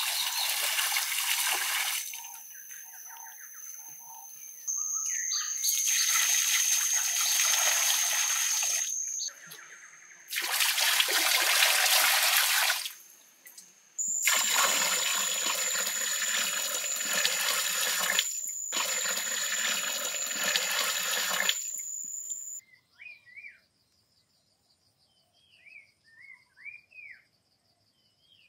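Water poured from a clay pot, splashing into a shallow cement-lined pond, in four long pours with short breaks between them. A steady high whine runs under the pours. Near the end the pouring stops and birds chirp softly.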